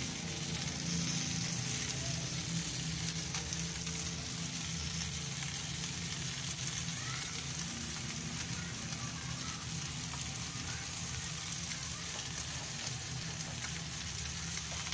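Chicken, peas and boiled macaroni frying in a steel pan on the stove, a steady sizzling hiss.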